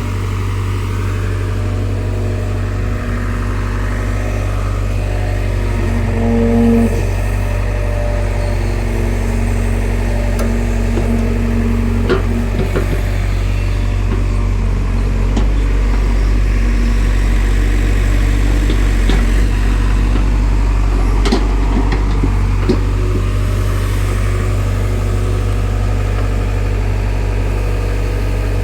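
Excavator's diesel engine running steadily under working load, with a hydraulic whine that comes and goes as the boom and bucket move, and a few sharp knocks from the bucket.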